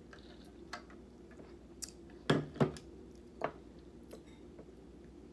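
A metal eating utensil tapping and clinking against a bowl while eating: a few scattered taps, the two loudest close together about two and a half seconds in, over a steady low hum.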